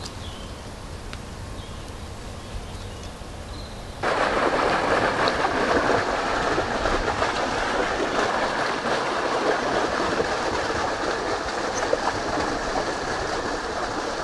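After a quieter start, a steady rushing of water against an inflatable kayak's hull as it glides along a river, starting suddenly about four seconds in.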